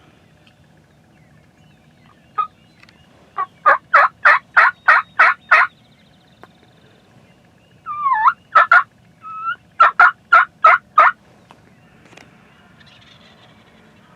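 Wild turkey yelping: two runs of loud, evenly spaced yelps, about four a second, a couple of seconds apart, with a short bending note between them.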